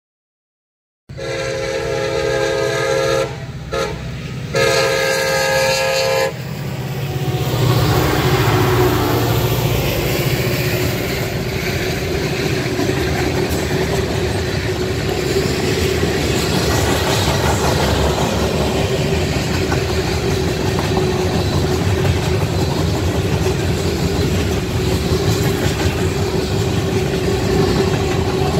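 A diesel locomotive's multi-note air horn sounds a long blast, a short one and another long one. Then a CSX freight train rolls past: the locomotives' diesel rumble gives way to tank cars clacking steadily over the rail joints, with a steady tone above the rumble.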